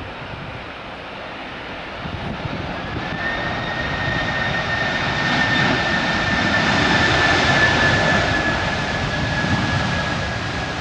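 Airliner's engines passing: a rush that swells over several seconds with a high whine that comes in about three seconds in and sinks slightly in pitch as it goes by, loudest a little past the middle and easing near the end.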